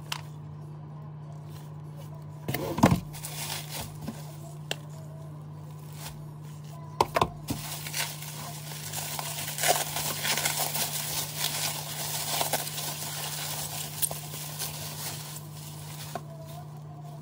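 Bubble wrap crinkling and crackling for several seconds as gloved hands unwrap a phone from it, after a couple of sharp knocks from handling boxes. A steady low hum runs underneath.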